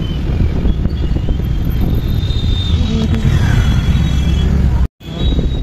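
Heavy wind rumble on the microphone and road noise from riding a motorbike through city traffic. The sound drops out for a moment near the end.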